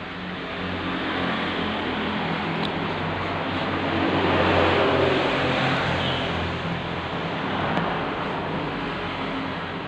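A passing motor vehicle: engine noise that rises to a peak about halfway through, then fades.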